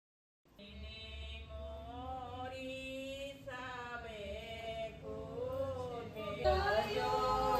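Women singing a Bagheli folk song in long, wavering held notes. It starts about half a second in after a moment of dead silence and grows louder near the end.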